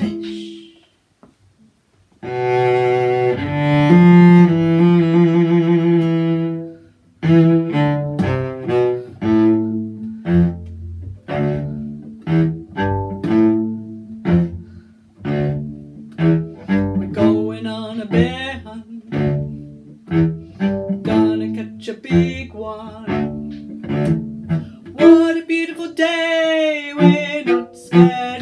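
Bowed string instrument playing an instrumental passage. After a short pause come long held notes, then a run of short separate notes over a held low note, and wavering held notes near the end.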